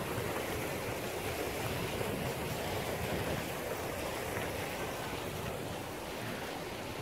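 Steady rushing outdoor noise with an uneven low rumble underneath.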